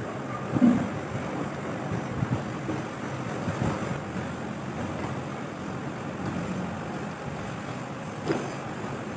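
Steady background noise with a few light metal knocks from tools and engine parts being handled on a bare engine block, one about a second in and another near the end.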